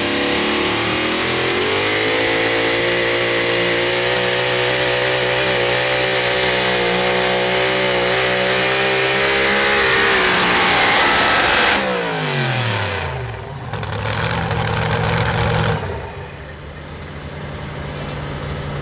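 Super modified four-wheel-drive pulling truck's engine held at high revs under full load during a sled pull, its pitch climbing slightly. About twelve seconds in the revs fall sharply as the throttle is let off, and the engine then settles to a lower, steady running.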